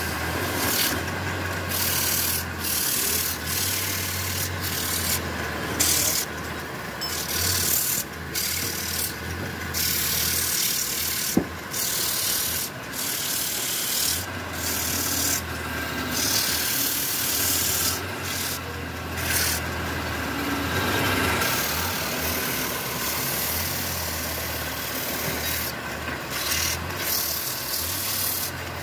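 Hand-held sandpaper against a wooden tray spinning on a lathe: a hissing rasp that comes and goes as the paper is pressed on and lifted, over the steady hum of the lathe's motor. One sharp click about eleven seconds in.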